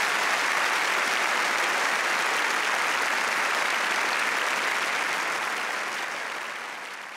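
Audience applauding, steady and then fading away near the end.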